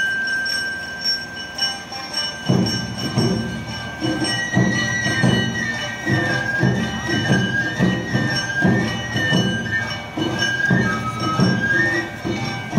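Live Awa Odori music: a bamboo flute carries a high melody over a small gong ringing in a steady beat. Drums join about two and a half seconds in with a regular, driving rhythm.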